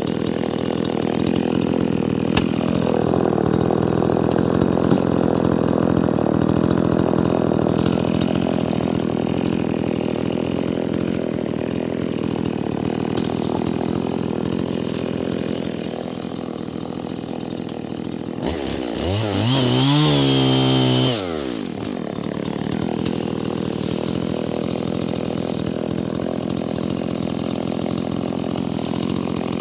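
Chainsaw engine running steadily, revving up sharply to full throttle for about two seconds around two-thirds of the way through, then dropping back to a steady run.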